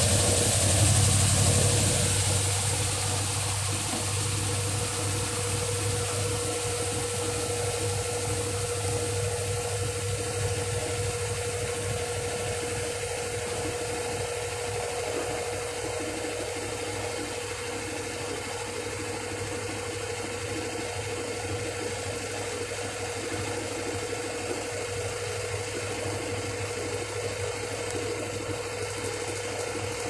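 Brastemp 6th Sense top-loading washing machine on its spin, the basket turning fast: a steady motor hum with a steady whine over it. A high hiss fades away over the first couple of seconds.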